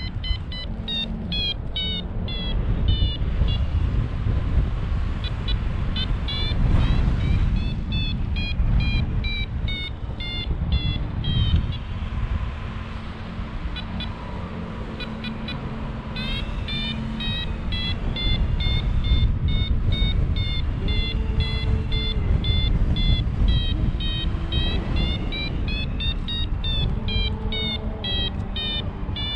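Paragliding variometer beeping in quick runs of short tones whose pitch steps up and down, the beeps thinning out for a few seconds mid-way, over wind rushing on the microphone. The beeping is the vario's climb signal, its pitch and pace following the rate of climb.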